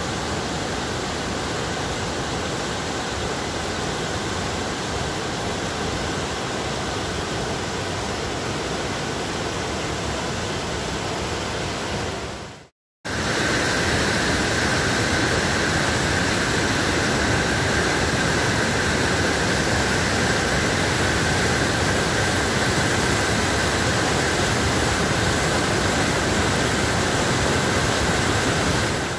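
Floodwater of the Doubs rushing over a weir in a steady roar; after a sudden cut about halfway through, the rushing of whitewater rapids in spate, a little louder.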